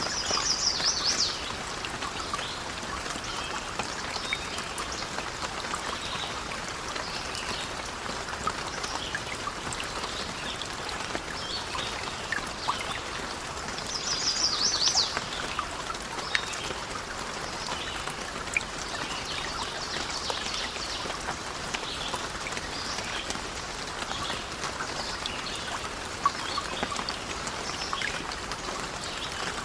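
Steady rain with scattered small ticks and clicks. A bird gives a short, rapid series of high chirps twice: at the start and about halfway through.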